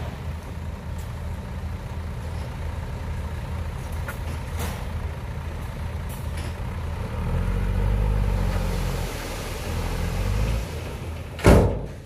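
Dump truck's diesel engine running steadily while the raised bed empties its load of soil, swelling louder for a couple of seconds past the middle. A sudden loud burst near the end.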